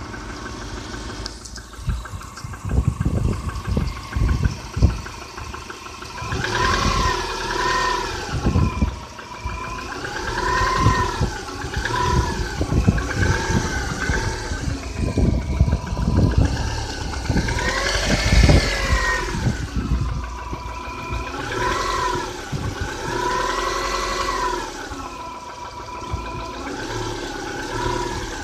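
Subaru Outback's EJ251 2.5-litre flat-four engine running with a knock, in an engine rebuilt 5,000 km earlier. From about six seconds in it is revved up and down again and again, each rise and fall of pitch lasting a couple of seconds.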